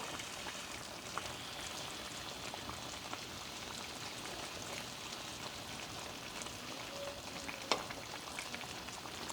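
Food frying in a pan, a steady sizzle, with one sharp click or knock about three-quarters of the way through.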